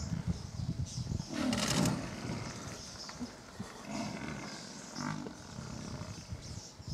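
A lion growling and roaring in distress while pinned and gored by a Cape buffalo. The loudest roar comes about a second and a half in, with weaker growls around four and five seconds in.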